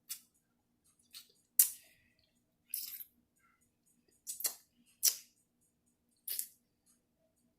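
Close-miked eating of shrimp and broccoli coconut-curry stir fry: about seven short, separate chewing and mouth sounds with quiet between them, the loudest about one and a half seconds in.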